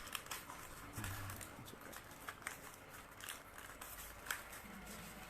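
Scissors cutting the folds of a cardboard box: scattered, irregular sharp snips and clicks while the cardboard is handled, the sharpest a little past four seconds in.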